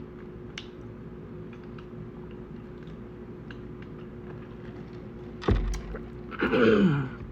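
Quiet eating with faint scattered clicks over a steady low hum. About five and a half seconds in there is a single heavy thump, then a short hum-like vocal sound that falls in pitch.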